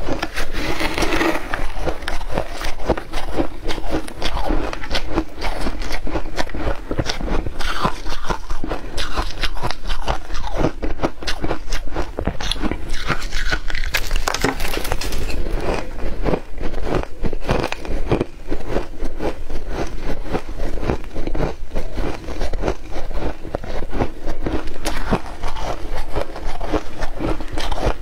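Shaved ice crunching as it is bitten and chewed, mixed with a metal spoon scraping through a bowl of shaved ice: a dense, unbroken run of crackling clicks.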